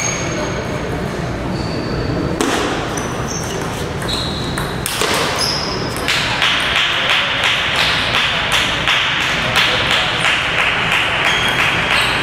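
Table tennis ball being struck back and forth in a rally: sharp clicks off bats and table, scattered at first, then a steady run of about two hits a second from about halfway in, with short high squeaks in between.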